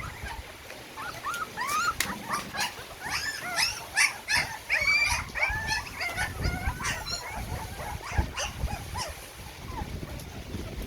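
Young puppies whimpering and squealing in a chorus of many short, high cries while jostling to nurse, busiest in the first two-thirds and thinning near the end, with soft bumping and rustling underneath.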